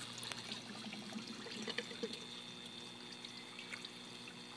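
Nutrient solution trickling and pouring steadily from a hydroponic drain pipe back into the reservoir, with small splashes and drips.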